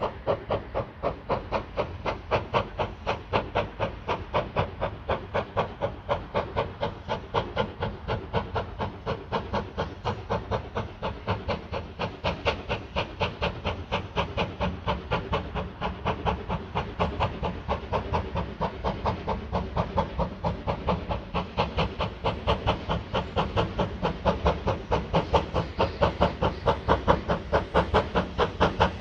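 USATC S160 2-8-0 steam locomotive working, its exhaust beating in a rapid, even rhythm of about four chuffs a second. The beats grow louder toward the end.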